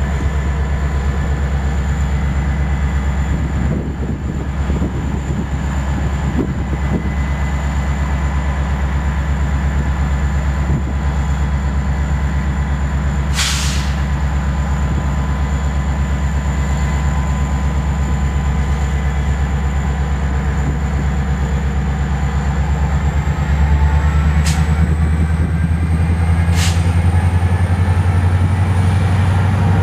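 A diesel-electric commuter locomotive, an MPI MP36PH-3S with an EMD 16-cylinder two-stroke engine, runs steadily with a low engine hum and a high steady whine. There is a short hiss about halfway and two sharper hisses later. About three-quarters of the way through, the engine gets louder and the whine rises in pitch as it throttles up.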